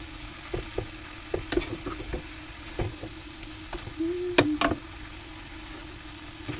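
Wooden spatula stirring vegetables and sliced chicken turkey in a frying pan: irregular knocks and scrapes against the pan over a faint sizzle, with a cluster of louder knocks about four seconds in. A steady low hum runs underneath.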